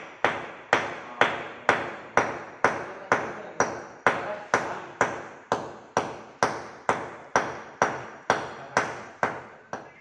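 Hammer striking at a ceiling overhead in a steady rhythm, about two blows a second, each blow sharp with a short ringing decay.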